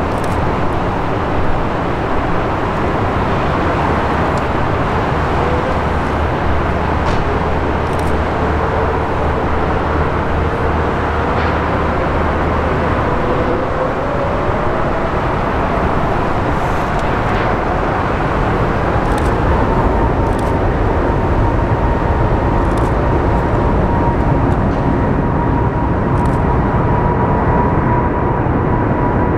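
Airbus A380 jet engines running loud and steady, with a whine that dips and then climbs steadily in pitch through the second half.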